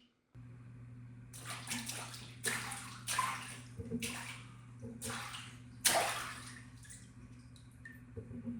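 Water splashed and sloshed in a small tub: a run of separate splashes, the loudest about six seconds in, each dying away quickly.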